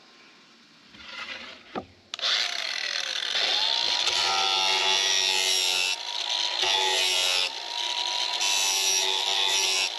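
Angle grinder with a sanding disc starting up about two seconds in, its whine rising to a steady pitch, then grinding the edge of a plywood seat-back blank with a loud grating noise that eases off briefly a few times. A knock comes just before the start.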